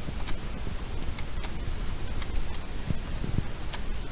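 Rubik's Cube layers being turned by hand, giving irregular short plastic clicks over a steady hiss.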